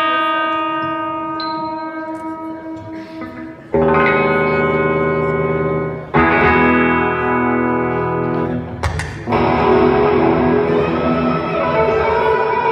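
Electric guitar through an amplifier with effects, soundchecked by striking single chords and letting each ring out: a fresh chord about 4 seconds in, another about 6 seconds in, and a louder, denser, distorted one about 9 seconds in.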